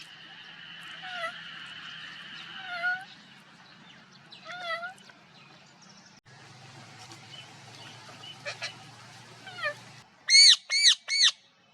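Parrot calls: a few separate dipping calls over a steady high background hum, then about six seconds in a different background with more short calls, and near the end three loud, quick arched squawks in a row.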